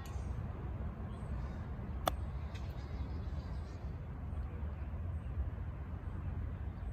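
A golf iron striking a ball once: a single sharp click about two seconds in, over a steady low outdoor rumble.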